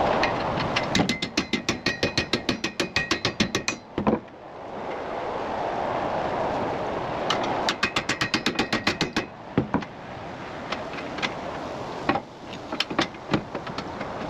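Hand ratchet wrench clicking in quick runs, about seven clicks a second, as bracket bolts are tightened, with scattered single clicks and knocks later and a steady rushing noise between the runs.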